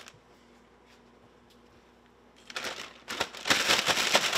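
Plastic zip-top bag of cornmeal crinkling and rustling as fish fillets are put in to be coated. The bag is quiet for the first two and a half seconds, then the crinkling starts and grows loud.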